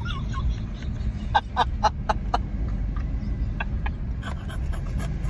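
Steady low rumble of road noise inside a moving car. About a second and a half in comes a quick run of five or so short vocal sounds from a person.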